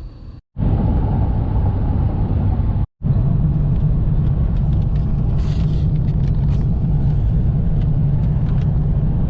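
Car driving along, a steady low rumble of road and engine noise heard from inside the cabin; it drops out briefly twice in the first three seconds.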